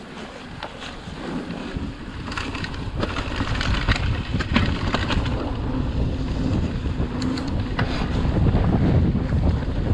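Wind buffeting the camera microphone while the mountain bike rolls along a dirt trail, growing louder as the bike gathers speed. Tyre rumble runs under it, with scattered clicks and rattles from the bike over bumps.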